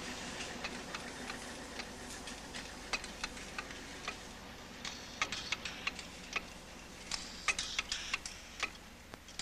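Irregular light mechanical clicks and ticks, small parts or tools tapping, over a faint steady hum; the clicks grow denser and louder about five seconds in.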